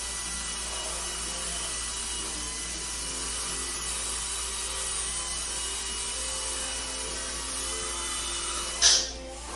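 Dental office background: a steady hiss of ventilation and equipment with faint, steady high whines. About nine seconds in comes a short, loud burst of hiss, after which the sound dips briefly.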